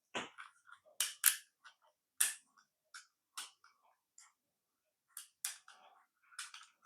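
Sharp plastic clicks and taps, a dozen or so at irregular intervals, from handling and working the switch and button of a VTech Go! Go! Smart Wheels toy car. The toy makes no sound of its own: it is dead despite fresh batteries.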